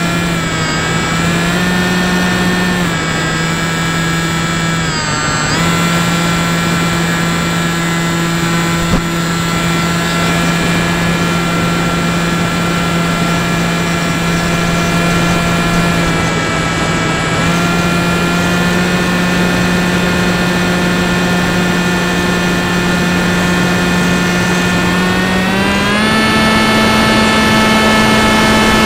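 Motor and propeller of an FPV fixed-wing RC plane heard from its onboard camera: a steady buzzing whine over air rush, its pitch shifting a few times with the throttle and stepping up near the end.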